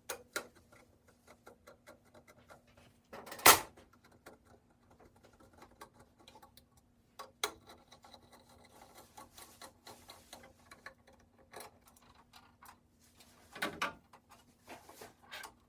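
Hand work on a wall outlet and its box: scattered small clicks and scrapes, with a loud knock about three and a half seconds in and a few more knocks near the end. A faint steady hum runs underneath.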